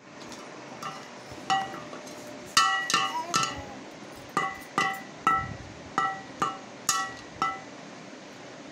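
A wooden stick beating an upturned metal pot lid, about a dozen irregular strikes, some in quick pairs, each with a short bright metallic ring.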